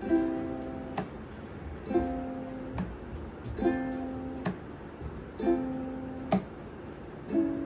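Fender ukulele strummed slowly, one chord about every two seconds. Each chord is left to ring and then cut off with a sharp click.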